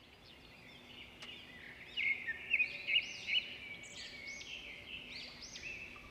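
Birds chirping and singing: many short, arching chirps that come one after another, loudest between about two and three and a half seconds in.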